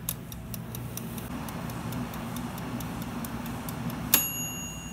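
Air fryer running with a steady low hum while its timer dial gives a run of sharp ticks as it is turned. Just past four seconds the timer's bell strikes once with a loud ding that rings on, marking the end of the cooking time.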